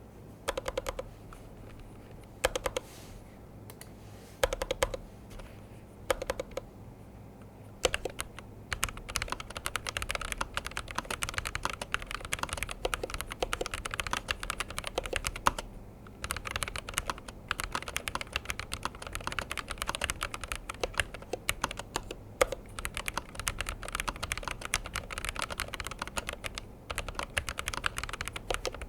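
Typing on a Razer BlackWidow V4 Low Profile HyperSpeed low-profile mechanical keyboard: a few short bursts of keystrokes at first, then fast continuous typing from about eight seconds in, with one brief pause midway.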